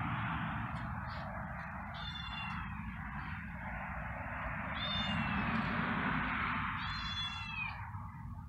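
A stray kitten meowing three times, short high calls about two seconds apart, the last one falling in pitch, over a steady background hiss.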